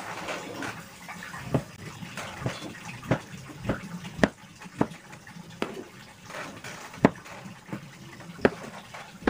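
Kitchen knife slicing through a block of tempeh and knocking on a plastic cutting board, a sharp tap with each slice, roughly one every half second to second, over a faint steady hiss.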